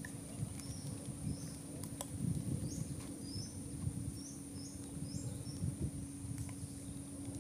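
Night-time insect chorus: a steady high-pitched buzz with short chirps at irregular intervals, about one or two a second, over a low rumbling noise.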